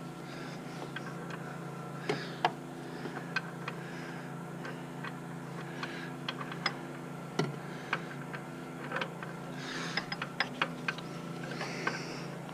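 Scattered sharp clicks and small knocks from hand tools and parts being handled in a pickup's front wheel well, coming irregularly and bunched in short runs, over a steady low hum.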